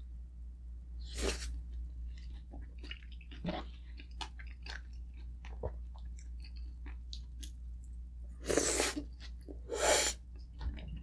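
Close-miked chewing of food, with many small wet mouth clicks, broken by three louder breathy bursts: one about a second in and two near the end.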